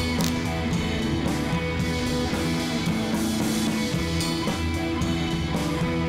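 Background music: an electric guitar-led rock track with drums and a steady beat.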